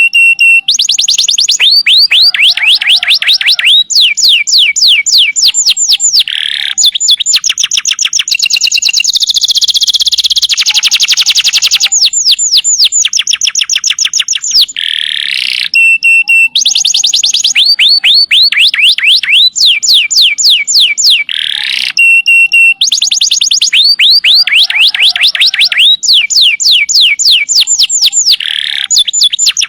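Canary singing a loud, fast song of trills and rolls: runs of quick, sweeping chirps many to the second, changing from phrase to phrase every second or two. The same sequence of phrases comes round again about every fifteen seconds.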